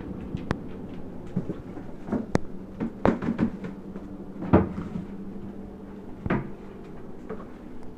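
Scattered footsteps on a hard tile floor: irregular clicks, taps and a few louder knocks from a restless coonhound's paws and a person walking beside him, over a steady low hum. The dog's aimless pacing is a symptom of a liver-shunt spell.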